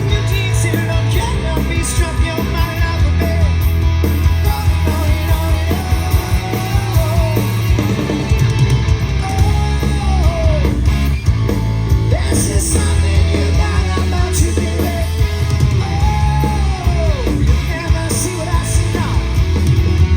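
Live amplified rock band playing, with loud bass, electric guitar and drums, and a singer's voice carrying long sung lines through the middle.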